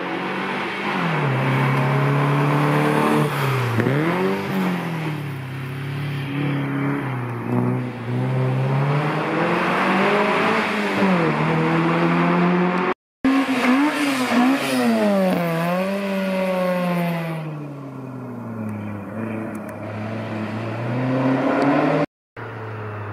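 Hillclimb competition car engines revving hard and accelerating past, the pitch climbing and dropping again and again through gear changes. The sound cuts out briefly twice, about halfway and near the end.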